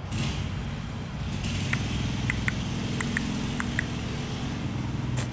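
Steady low hum of a running engine, with a few short, faint high ticks between about two and four seconds in.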